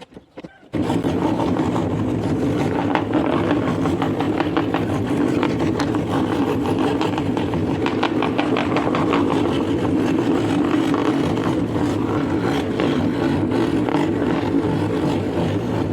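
Scroll saw switched on about a second in and running steadily, its motor humming under a rapid, even chatter of the reciprocating blade.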